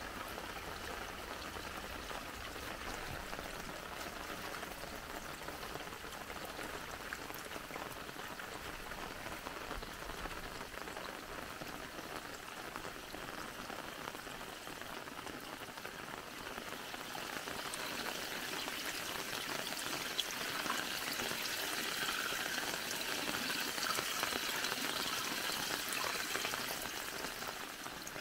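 Light rain pattering on a muddy pool, with road runoff spilling over the lip of a small stone dam as the dam overflows. The sound grows louder and brighter about two-thirds of the way in, then eases off near the end.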